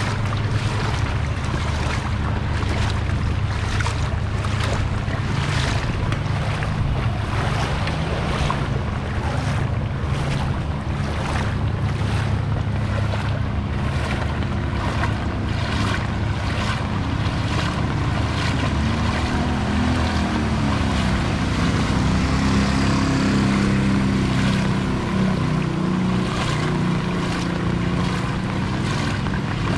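Feet wading through shin-deep floodwater, splashing and sloshing at each step, over a steady low rumble of wind on the microphone. A low, wavering hum joins about two-thirds of the way through.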